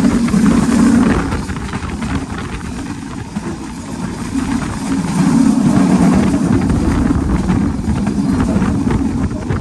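Passenger train running at speed, heard through an open coach window: a steady low rumble of wheels on rail mixed with wind rush. It swells louder about a second in and again around the middle.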